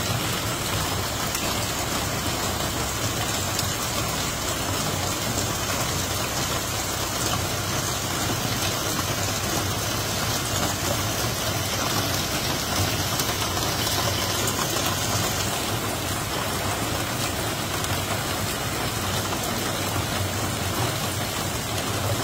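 Heavy monsoon downpour: a dense, steady hiss of rain on the ground, standing water and trees. A low steady hum runs underneath it.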